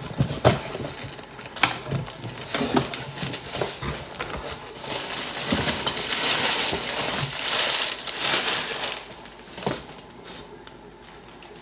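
Paper and plastic packaging crinkling and rustling as a mailed package is opened by hand, with scattered taps and clicks; the crinkling is densest from about five to nine seconds in.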